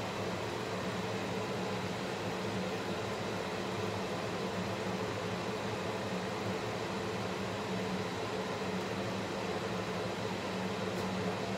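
Kitchen range hood extractor fan running: a steady whir with a low hum.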